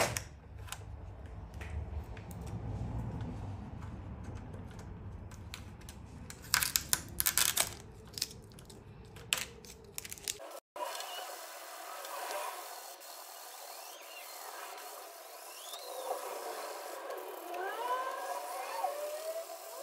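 Tape being peeled off a wet carbon-fibre panel, with a cluster of sharp crackles and clicks about six to seven seconds in. After an abrupt break, faint short squeaky glides follow.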